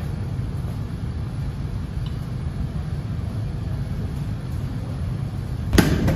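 Steady low background rumble, then near the end a basketball bounces sharply on a hard tiled floor as a dribble begins.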